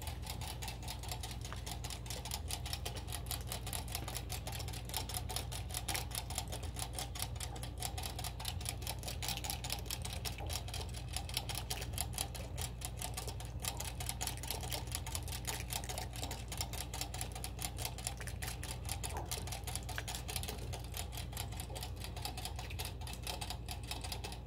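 Rabbit drinking from a cage water bottle's metal sipper spout: rapid, steady clicking of its tongue working the spout, several clicks a second, with gulping.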